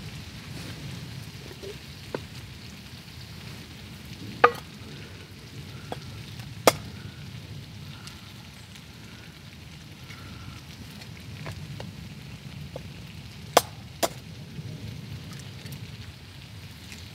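Breakfast hash frying in a pan with a steady sizzle. Five or six sharp metallic clicks of a utensil against the pan break through, two of them close together near the end.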